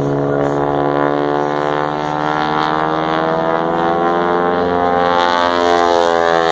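Aerobatic propeller plane's piston engine droning steadily overhead through a loop, its pitch dipping and then climbing near the end.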